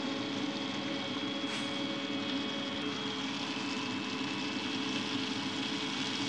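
Breaded chicken pieces deep-frying in a pan of hot oil, a steady sizzle, with a steady mechanical hum underneath.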